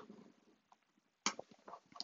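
A few faint clicks from plastic sewing clips being snapped onto the edge of layered fabric. The sharpest click comes a little over a second in, with smaller ticks near the end.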